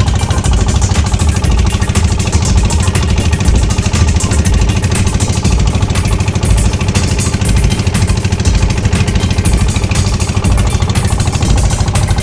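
Boat engine running steadily and loud, with a low, continuous drone.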